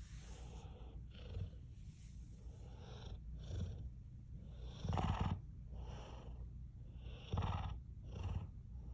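Large dog snoring loudly in its sleep, one breath roughly every second, with the two loudest, rasping snores about five and seven and a half seconds in.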